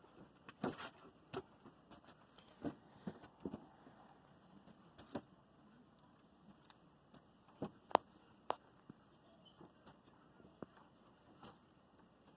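Faint, irregular clicks and light jingling taps, scattered unevenly, with no steady rhythm.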